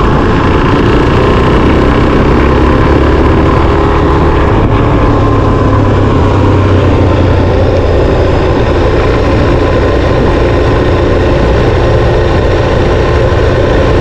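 Suzuki DR-Z400SM's single-cylinder four-stroke engine running steadily under way, its pitch shifting only a little.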